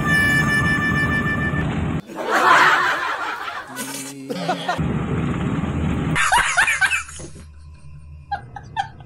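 A string of edited-in comic sound effects. A held musical tone breaks off about two seconds in into a loud noisy burst. Rapid, evenly repeated laughing syllables come near the end.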